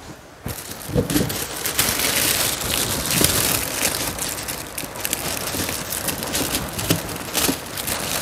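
Plastic rubbish bags rustling and crackling as they are handled, with a few soft knocks mixed in.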